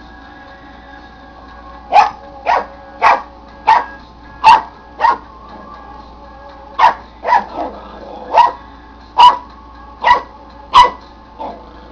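Papillon puppy barking: about a dozen short, sharp barks in two runs, the first run about half a second apart, then a pause of over a second and a second, more uneven run.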